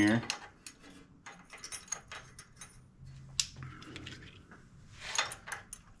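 Scattered light metallic clicks and taps as a pushrod and rocker arm are worked into position on the cylinder head of a Briggs & Stratton 20 hp V-twin. The sharpest click comes about three and a half seconds in.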